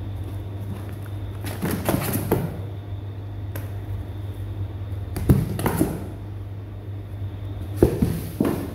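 Kittens scrambling in a cardboard box, their paws knocking and scraping the cardboard in three short bursts, over a steady low hum.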